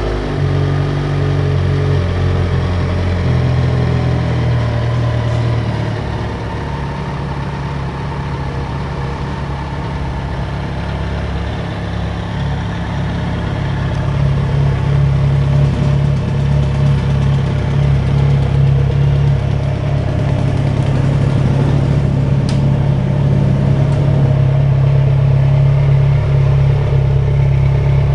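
Kawasaki Z1000 inline-four motorcycle engine idling steadily through a Hurricane aftermarket sport exhaust, just after starting.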